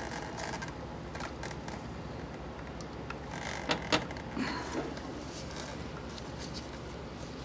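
Faint clicks and light rattles of plastic fuel-injection wiring connectors being worked loose by gloved hands, with a couple of sharper clicks a little past the middle, over a low steady hum.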